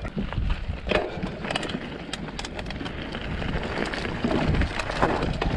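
Mountain bike rolling over loose rock and gravel: tyres crunching and the bike rattling, with many small irregular clicks and knocks, over a low rumble of wind on the microphone.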